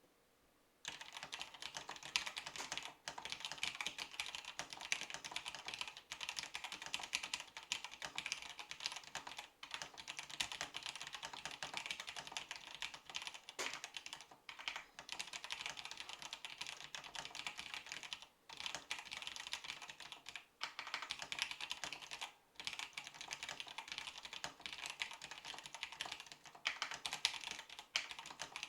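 Continuous fast typing on a Datacomp JMC-5151C keyboard with vintage Cherry MX Black linear switches, a rapid clatter of keystrokes. It starts about a second in, with a few short pauses.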